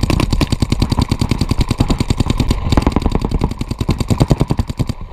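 Empire Vanquish electronic paintball marker firing rapidly at close range, about ten shots a second, with a brief break midway, stopping just before the end.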